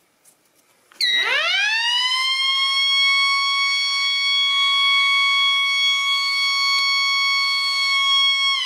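Siren sounding the tornado alert alarm: about a second in it rises quickly in pitch to a steady high wail, holds it, and begins to fall in pitch near the end.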